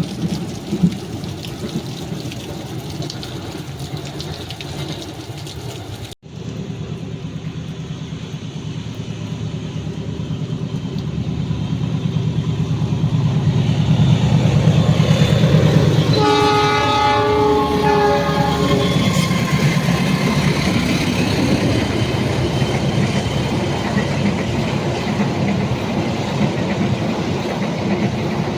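Diesel train approaching and passing on wet rails, its low engine rumble building up, with the locomotive horn sounding one blast of about three seconds past the middle.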